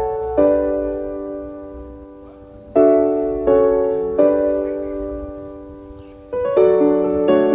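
Background piano music: slow chords, each struck and left to ring and fade, a new chord coming every second or two.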